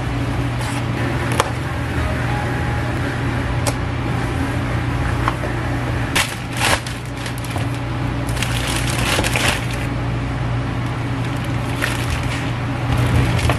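Paper and plastic packaging being handled: a wrapped roll cake slid into a paperboard cake box and the flaps shut with a few sharp clicks, then crinkling as the box goes into a clear plastic carrier bag. A steady low hum runs underneath.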